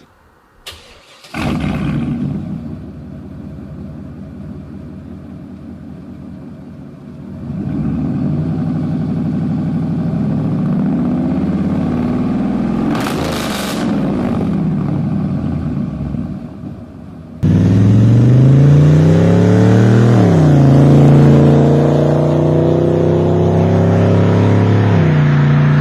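Chevrolet Vortec 8100 8.1-litre big-block V8 running, heard in two spliced clips. First it runs at a steady speed, with a short hiss partway through. Then, after an abrupt cut, it is louder and its engine speed swings down and up before holding steady.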